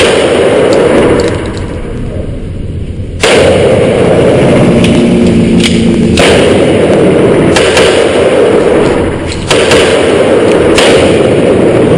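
Handgun shots at an indoor range, several sharp reports at irregular intervals of roughly one to three seconds, over a loud, dense, constant noise that never drops away.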